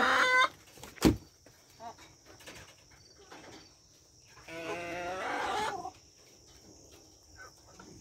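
Backyard hens vocalizing: a sharp knock about a second in, a few faint short clucks, then one drawn-out hen call a little past halfway.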